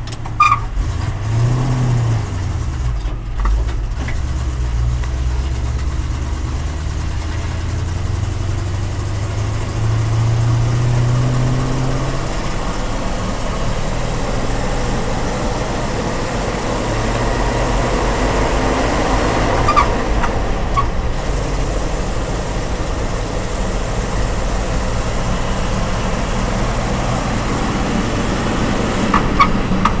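ZIL-130 truck's V8 petrol engine running while the truck drives, heard from inside the cab. The engine note climbs and drops about two seconds in, then runs steadily, with a few light knocks near the end.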